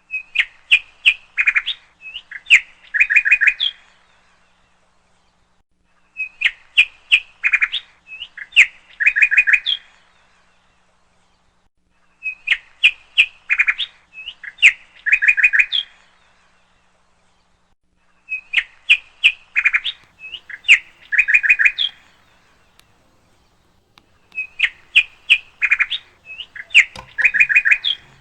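Parrot calls: a phrase of quick sharp chirps followed by short trills, repeated five times about six seconds apart with silence in between. Each phrase is identical to the others.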